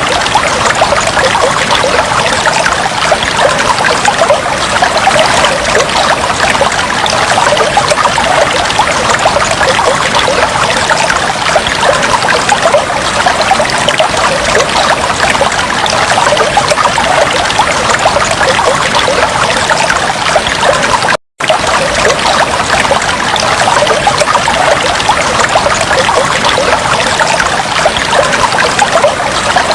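Fish tank water trickling and bubbling steadily. It cuts out for a split second about 21 seconds in.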